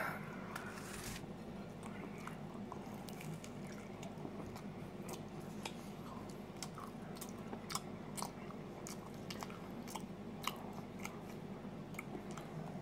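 Close-up chewing of a slice of frozen deluxe pizza: irregular wet mouth clicks and small crunches of the crust, over a steady low hum.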